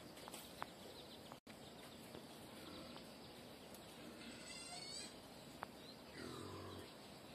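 Faint steady hiss of rain, with a short animal call about six seconds in.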